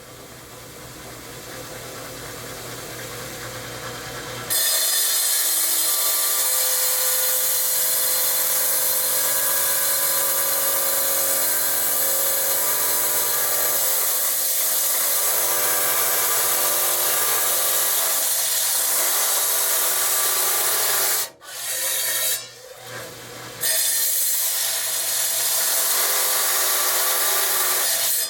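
Felker Tile Master wet tile saw cutting rock: the diamond blade grinds through stone with a loud, steady hiss over the motor's hum. It runs quieter for the first few seconds and jumps up when the cut starts, then drops out briefly twice about three-quarters of the way through before cutting resumes.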